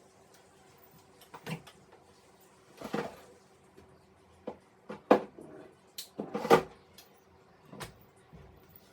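A series of sharp household knocks and clatters, irregularly spaced, like things being handled and set down or a cupboard being worked; the loudest two come about five and six and a half seconds in.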